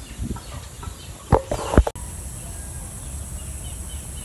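A chicken clucking a few short times about a second and a half in. After that, a steady high-pitched insect drone.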